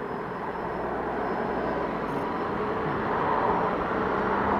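Riding noise on a 2006 Yamaha Fazer FZ6: wind and road rush over the helmet-mounted camera mic with the inline-four engine running underneath, gradually getting louder.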